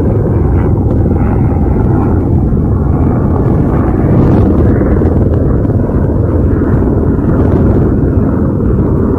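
Wind buffeting the microphone on an exposed hilltop: a loud, steady low rumble.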